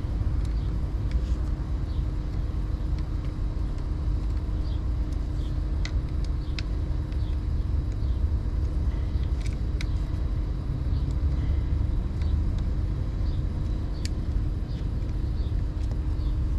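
Steady low outdoor rumble with a faint steady hum, like distant traffic, and a few faint light metallic clicks scattered through it from an Allen key working the front fork's pinch bolts.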